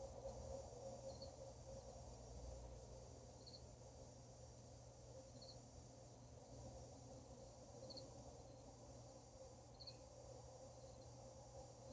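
Faint night ambience: an insect chirping, short clusters of quick high pulses about every two seconds, over a faint steady low hum.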